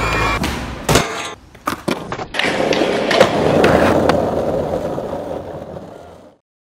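Skateboard sounds: a few sharp board pops and landings in the first two seconds, then a long stretch of wheels rolling that fades out about six seconds in.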